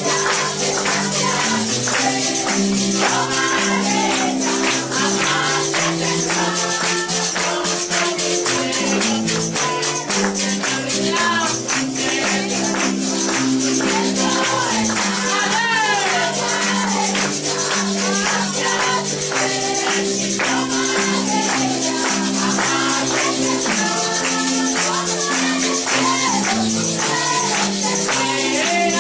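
Congregational worship music: sustained chords, a tambourine shaken throughout, and many voices singing and praising together.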